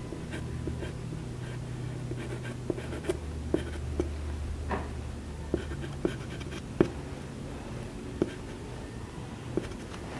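Soft pastel stick stroking and scratching across pastel paper in short strokes, with scattered light ticks over a low steady hum.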